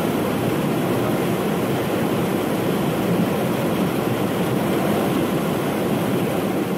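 Whitewater rapids of a mountain creek tumbling over boulders below a waterfall: a steady, even rush of water.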